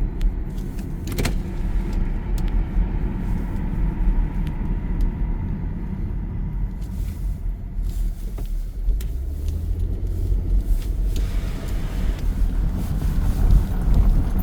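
Steady low rumble of a running vehicle engine, with a deeper engine note coming in about nine seconds in and dropping away about two seconds later.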